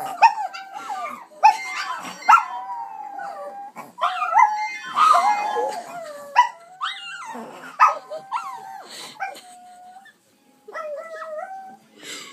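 Chihuahuas howling together: long, wavering howls broken by sharp yips, with more than one voice overlapping. The howling breaks off about ten seconds in, then one short rising howl follows.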